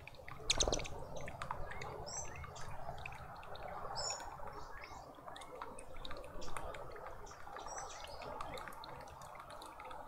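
Small garden birds chirping: many short high chirps, with a few brief whistled notes about two, four and eight seconds in. A brief louder noise comes about half a second in.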